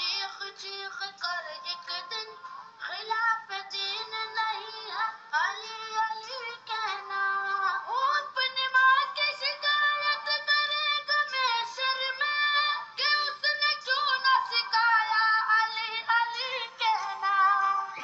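Background music: a song with a high, electronically treated singing voice that plays on steadily.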